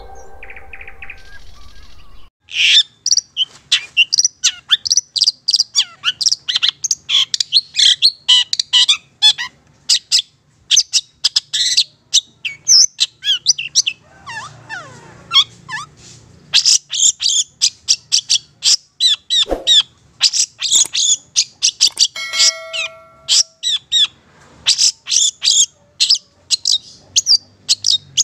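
Long-tailed shrike (Madura cendet) singing in a fast, near-continuous stream of short, sharp, high chattering notes, broken by a few brief pauses. It starts about two seconds in, as the tail of the intro music ends.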